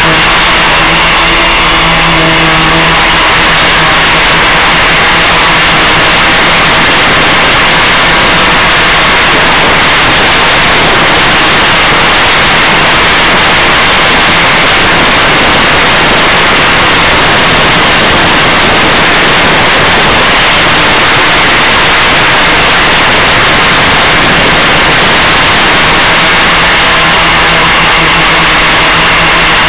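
Loud, steady hiss from the audio channel of an analog FPV video downlink, as recorded by the ground receiver, with a faint steady low hum under it that fades after a few seconds and returns near the end.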